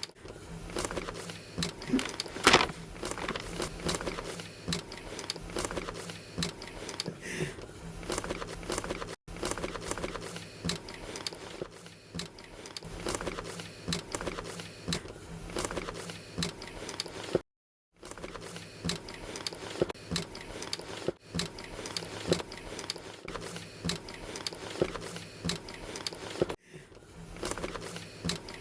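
Unboxing handling noise: packaging rustling and crinkling, with irregular scrapes and clicks as the power strip and cables are handled, over a low steady hum. Three or four abrupt cuts to silence break it up.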